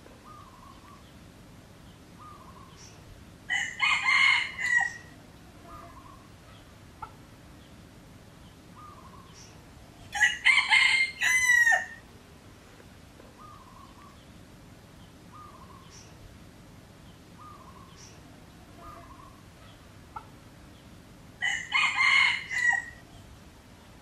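Red junglefowl rooster crowing three times, each crow about a second and a half long and spaced several seconds apart, with faint short calls in between.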